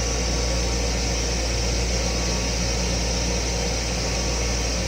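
Steady low hum and even hiss of an M7 railcar heard from inside its small restroom: the car's ventilation and running noise, unchanging throughout.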